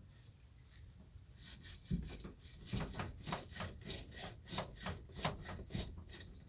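Small wire brush scrubbing inside the filter port of a tankless water heater, quick back-and-forth scraping strokes about four a second, starting about a second and a half in. The brushing clears gunk and buildup from the port.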